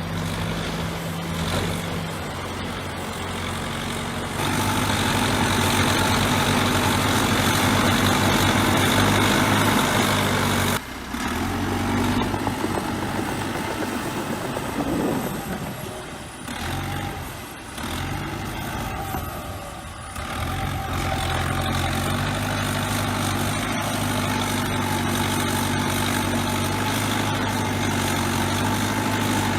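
Bulldozer's diesel engine running under varying load: the engine sound swells about four seconds in, drops off suddenly near eleven seconds, wavers for several seconds, then settles to a steady run.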